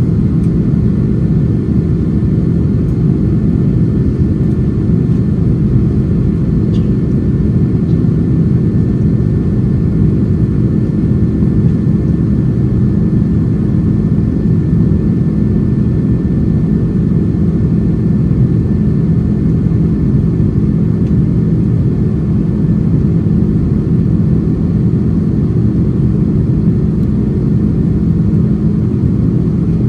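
Cabin noise of an Airbus A330-300 climbing out, heard from a window seat beside the wing: the General Electric CF6-80E1 turbofans and the airflow make a steady, loud low rumble, with a few faint steady engine tones above it.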